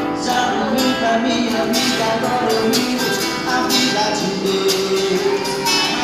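Live gospel band playing a song, with evenly repeating percussion hits over held instrumental and vocal notes.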